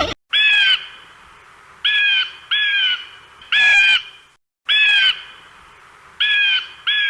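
A bird giving seven harsh, squawking calls in a loose rhythm, each about half a second long and arching slightly in pitch, some coming in close pairs.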